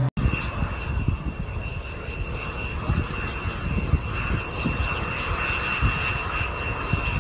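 Engine of a small single-engine propeller airplane running steadily at a distance, giving a steady high tone, with a gusty low rumble over it.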